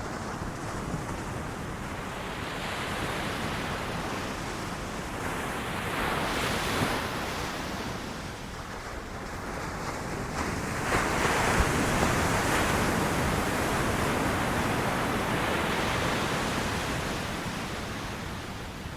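Ocean waves breaking on a beach: a steady wash of surf that swells twice, the second and louder surge building about eleven seconds in before easing off.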